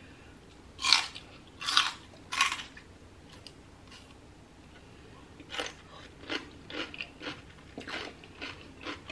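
Raw celery stick bitten and chewed: three loud, crisp crunches about a second in, then softer crunchy chewing through the second half.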